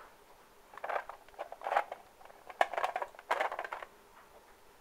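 Handling noise: rustling and small clicks in four short bursts about a second apart, as small plastic toy figures are handled and rummaged through.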